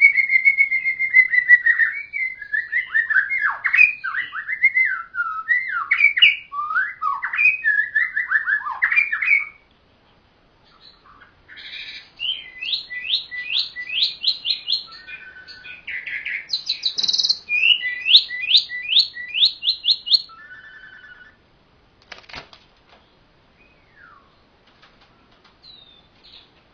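Songbird singing: a long held whistle, then a run of quick varied notes sweeping up and down. After a short pause about ten seconds in come fast series of rising notes, and after about twenty seconds only a few faint notes remain.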